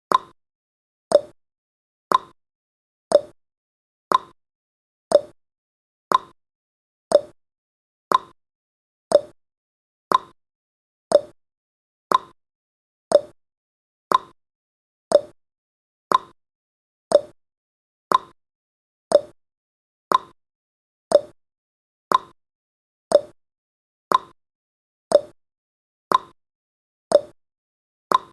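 Clock-ticking timer sound effect: one sharp tick every second, alternating a higher and a lower tick in a steady tick-tock.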